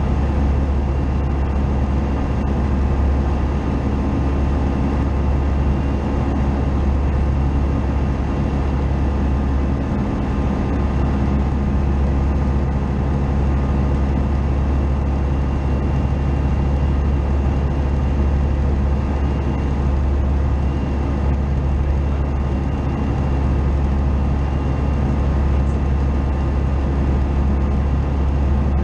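Tecnam P2002 JF's Rotax 912 four-cylinder engine and propeller droning steadily at cruise power in level flight, a loud, even hum with no change in pitch.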